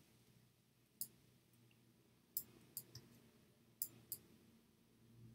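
Computer mouse clicking: about five short, sharp clicks at uneven intervals, two of them in quick pairs, over faint room hum.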